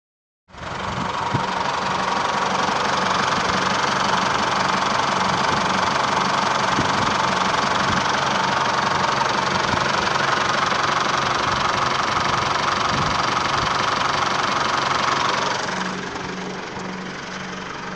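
Holden Colorado's 3.0-litre four-cylinder turbo diesel idling steadily, heard over the open engine bay. It becomes quieter for the last couple of seconds.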